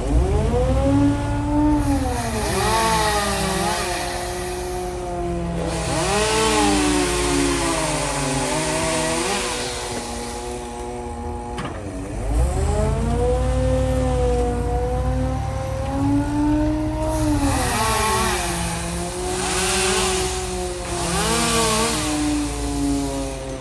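A small engine running fast, its pitch dipping and recovering again and again as it takes load, with stretches of rushing noise over it.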